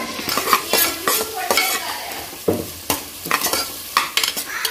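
Steel perforated ladle stirring and scraping chopped onions and tomatoes through hot oil in a pressure cooker, the oil sizzling steadily under irregular metal-on-metal scrapes, about two or three a second.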